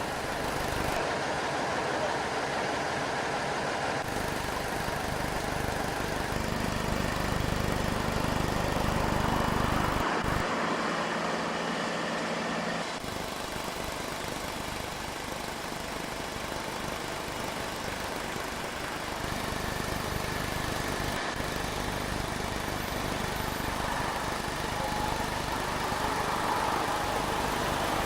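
Engines of heavy vehicles, the transporter lorry and crane, running steadily near idle, the hum changing abruptly several times.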